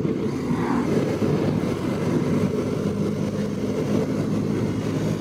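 BMW GS boxer-twin motorcycle cruising at a steady speed, the engine running evenly under a rush of riding wind.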